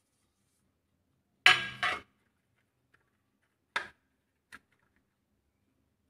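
Metal pizza pan knocking as it is handled and set down: a loud double clank about a second and a half in, then two lighter knocks around four seconds in, with silence between.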